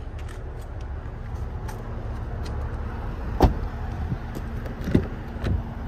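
Range Rover door shutting with a single solid thud about halfway through, then two lighter knocks, over a steady low rumble.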